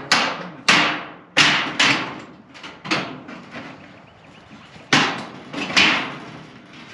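A series of sharp knocks, about eight in all, coming in irregular clusters with a pause of about two seconds in the middle. They are typical of hammer blows on wood during building work.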